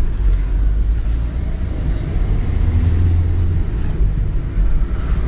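Engine and road rumble of a moving car heard from inside the cabin: a steady low drone, with a deeper hum swelling for about a second in the middle.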